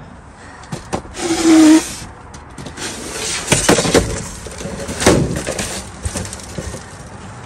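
Rummaging through a dumpster: cardboard boxes, plastic and fabric rustling and scraping, with a loud scrape about a second in and several sharp clattering knocks as items are shifted with a grabber pole.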